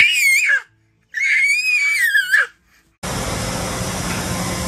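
Baby's two high-pitched cries, the second one longer, each dropping in pitch at the end. About three seconds in it gives way to the steady hum and hiss of a car repair shop.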